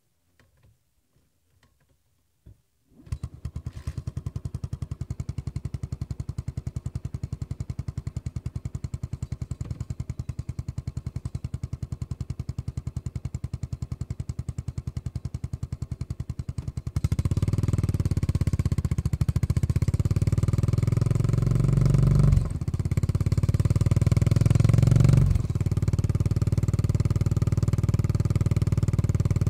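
2018 Yamaha SR400's air-cooled single-cylinder engine through a Goods tapered-cone slip-on muffler. After a short near-silence with a small knock, it starts about three seconds in and idles with even, regular thumps. Later it runs much louder and fuller, with two brief dips near the end.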